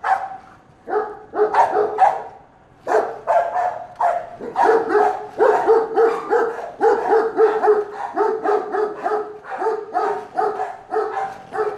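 Rapid, repeated dog barking: a few sharp barks at first, then a steady run of about three barks a second.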